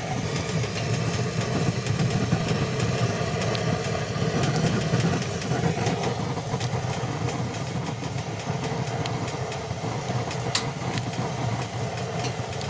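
Wood fire burning in a wood stove: a steady low rumbling roar of the flames, with a few sharp crackles from the burning logs.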